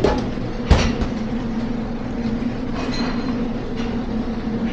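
Steady drone and hum of commercial kitchen equipment running, with one sharp knock about a second in.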